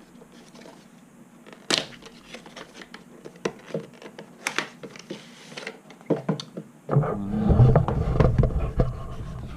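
A small product box and its packaging being opened and handled: a few sharp clicks and light taps, then louder rubbing and scraping of the packaging close by for the last few seconds.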